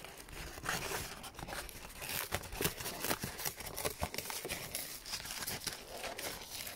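Cardboard box being torn and pulled open by hand, with irregular ripping, crinkling and scattered sharp cracks of the flaps.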